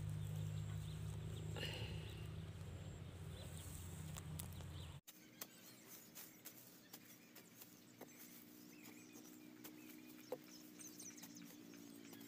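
Faint scattered knocks and scrapes of a long-handled digging spade working dry soil at a crab burrow, preceded by a low rumble while a hand scrapes inside the burrow, which breaks off about five seconds in.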